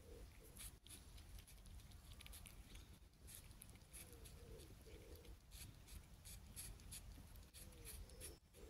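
Faint scratchy ticking and rustling of six-week-old kittens eating from paper on grass, with three short faint mews, one near the start, one midway and one near the end.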